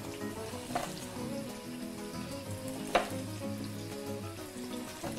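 Vegetables sizzling faintly in a frying pan, with a knife cutting through green beans onto a wooden chopping board; one sharp knock of the blade on the board about three seconds in.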